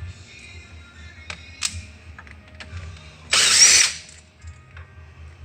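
Cordless impact driver with a small Allen bit running in one short burst about three seconds in, backing out one of the small screws that hold a Kawneer door closer's tube on. Light metal clicks of the tool and parts being handled come before it.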